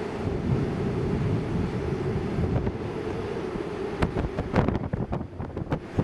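Strong, gusty wind buffeting the microphone with a low rumble, joined about four seconds in by a quick run of sharp clicks.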